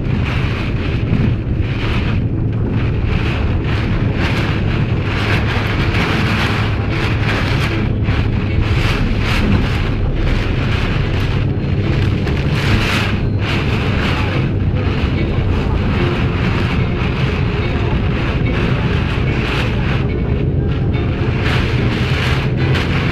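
Hurricane-force storm wind with driving rain, a loud, continuous rush that surges and eases in gusts over a steady low rumble.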